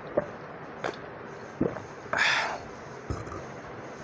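Close-up mouth sounds of drinking pakhala, fermented rice water, from a steel pot: wet lip smacks and gulps, with a short hissy slurp about two seconds in. A low knock follows about three seconds in as the steel pot meets the table.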